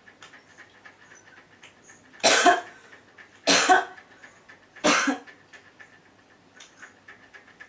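A man coughing three times, each cough short and harsh and a little over a second apart. The coughing is put on, faked for the prank.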